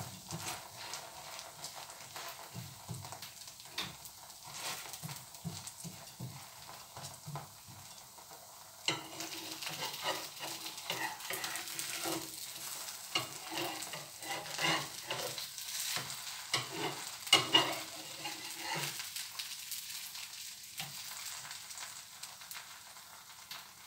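Vegetable-topped dosa sizzling in butter in the pan, with frequent scrapes and taps of a spatula pressing the topping down and a few louder clacks.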